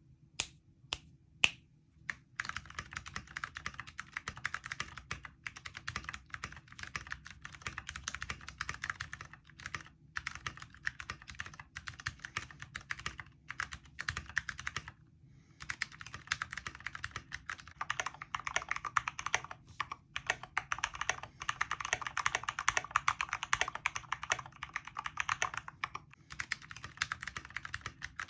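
Mechanical keyboard with tactile switches being typed on. A few single keystrokes come first, then fast continuous typing that pauses briefly about halfway through and resumes faster and louder.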